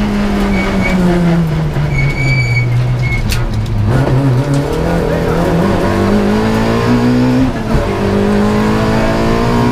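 Rally car's engine heard from inside the cockpit: revs fall over the first four seconds as it slows for a tight hairpin, with a few brief high squeals, then climb as it pulls away. The revs drop once for an upshift about two-thirds of the way through, then climb again.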